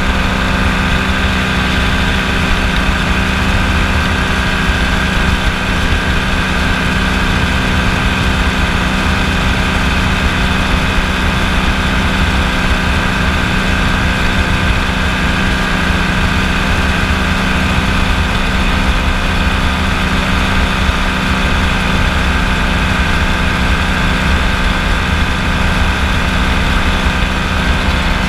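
Kolb FireFly ultralight's engine and propeller running steadily in flight: a loud, even drone that holds one pitch throughout.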